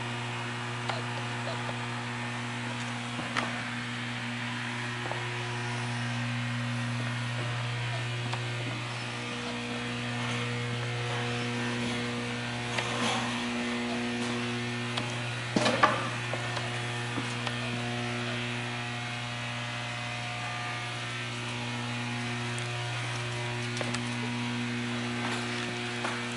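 Steady electrical hum with a few light knocks and clicks, the loudest a short cluster of knocks about sixteen seconds in.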